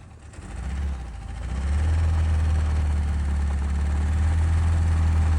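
Vehicle engine idling steadily, dipping briefly near the start and then running louder and even from about a second and a half in.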